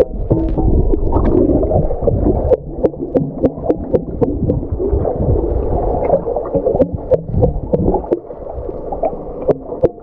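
Bubbling and gurgling water, like an aquarium or underwater, with many small pops throughout: the sound given for a pet fish.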